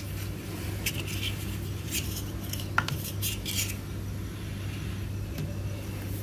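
Small plastic dollhouse furniture pieces clicking and tapping as they are picked up and set down on a hard floor: a handful of light clicks, most in the first three and a half seconds, over a steady low hum.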